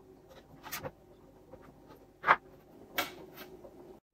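Scattered small clicks, taps and rubs of hands handling small connectors and a metal PC power supply casing, with one louder knock a little over two seconds in.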